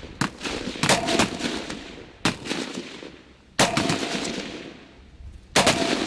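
Rifle shots from several shooters on a live-fire range: a single shot, then a quick group about a second in, another single shot, and rapid strings of shots near four and near six seconds. Each trails off in echo.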